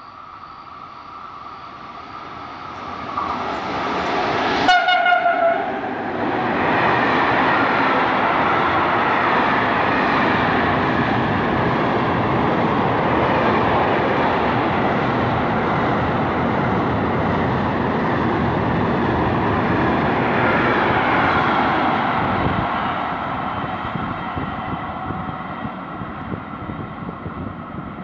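Freight train running through a station: it approaches, sounds a brief horn blast a little under five seconds in, then its long string of wagons passes steadily for about fifteen seconds before fading away.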